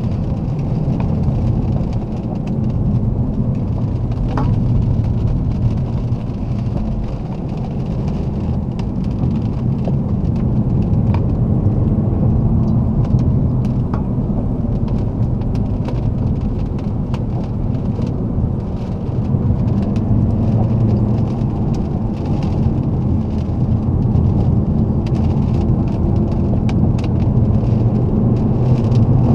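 Alfa Romeo 159 2.4 JTDm's five-cylinder diesel engine and tyre noise while driving: a steady low rumble that swells and eases slowly, with small scattered ticks.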